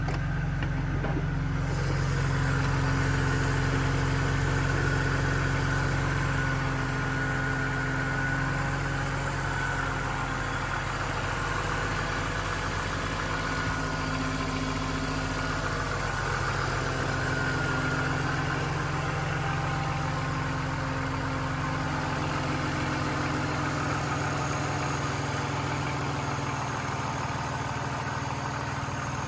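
BMW Z3's inline-six engine idling steadily with the bonnet open.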